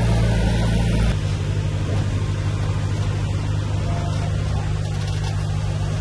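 Heavy diesel engine of earthmoving machinery running steadily; about a second in the sound changes abruptly to a slightly different, lower engine note.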